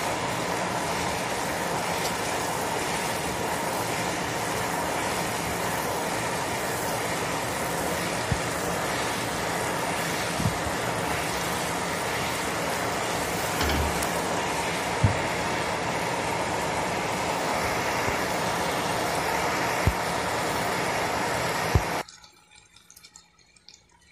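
Sugar-and-vinegar syrup boiling hard in a pot on a gas stove, a steady hissing bubble, with a few faint clicks of a wooden spoon against the pot. It stops abruptly about 22 seconds in.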